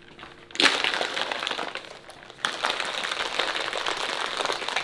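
Ice cubes rattling in a plastic shaker bottle as a drink is shaken hard. The shaking starts about half a second in, pauses briefly just after two seconds, then starts again.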